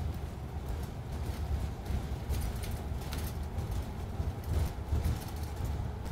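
Cabin noise inside a moving bus: a steady low engine and road rumble, with irregular light rattles and knocks as it drives along.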